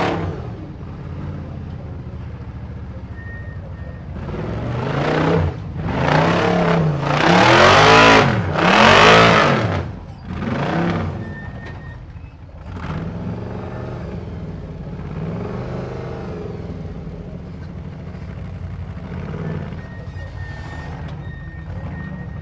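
Ultra4 rock-racing car's engine revving hard in repeated surges under load as it climbs over boulders, the pitch rising and falling with each burst. The loudest surges come in the middle, then it drops back to lower, steadier running.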